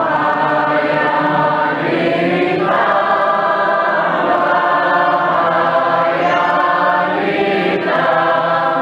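A choir singing unaccompanied Byzantine-rite liturgical chant, with long held notes that change pitch a few times.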